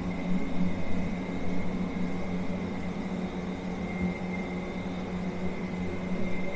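A steady mechanical hum with a thin high whine above it, over a constant background noise.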